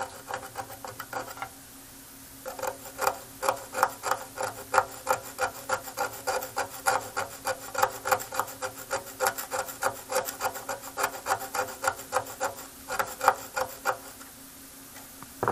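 Small metal blade scraping corrosion off a copper trace on a circuit board, in quick short back-and-forth strokes at several a second. The strokes pause for about a second near the start and stop shortly before the end.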